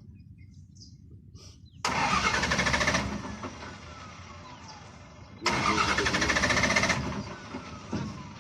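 Heavy vehicle engine with a low steady rumble, broken by two loud bursts of engine noise of about a second each, a few seconds apart.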